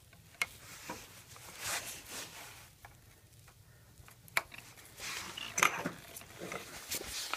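Handling noises of the Segway's wiring being connected: rustling with scattered sharp clicks, as the wire connectors between the handlebar shaft and the base are plugged together.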